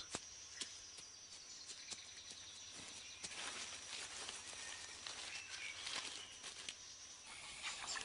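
Faint natural ambience: a steady high-pitched insect trill that stops near the end, with scattered faint clicks and rustles.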